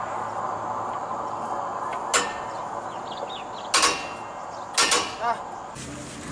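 Metal clanks from a steel wheel brace working a truck's wheel nuts: five sharp knocks, one a couple of seconds in, then two quick pairs close together near the middle, over steady background noise.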